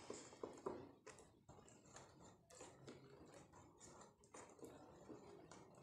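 Faint, irregular clicks and taps of a utensil against a glass bowl as thick cake batter is stirred by hand.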